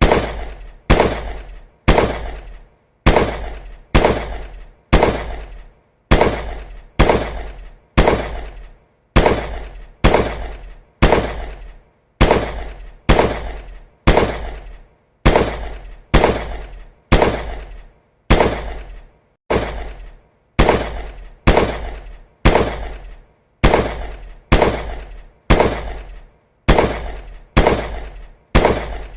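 Gunshot sound effect repeated at about one shot a second, each a sharp crack with a low boom that dies away quickly.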